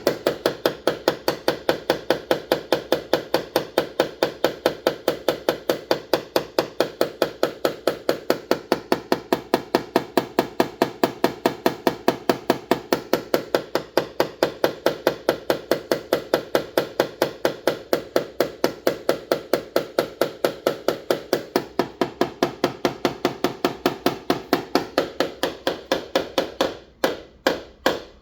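Paintless dent repair hammering: rapid, steady light tapping, about four taps a second, as the metal is worked down. There is a brief pause near the end before the tapping resumes.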